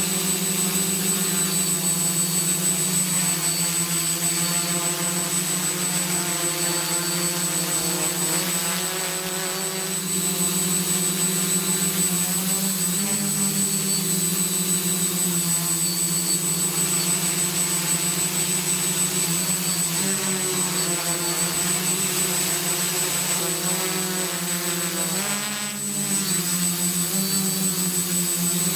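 Quadcopter's electric motors and propellers buzzing steadily in flight, the pitch shifting briefly up and down a few times. A thin, steady high whine sits on top.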